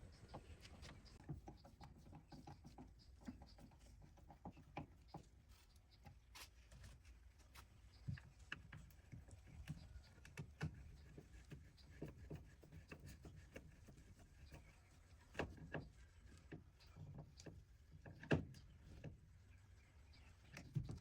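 Faint, scattered light clicks and knocks, irregular and a few a second, over a low steady hum; one sharper knock comes late on.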